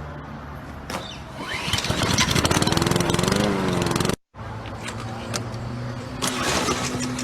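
Small petrol lawn-mower engine running, then revving up with a wavering, rising and falling pitch. It cuts off abruptly about four seconds in, and a steady engine hum picks up again right after.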